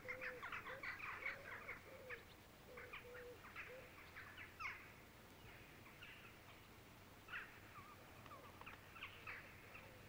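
Faint birdsong: many quick chirps, busiest in the first two seconds and then coming more sparsely, with a lower wavering call in the first four seconds.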